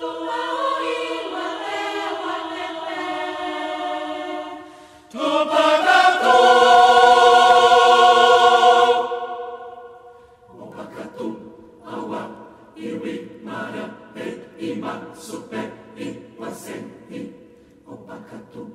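Recorded choir singing sustained chords that swell into a loud held chord about five seconds in, fade, then give way after about ten seconds to short, rhythmic, separately sung notes.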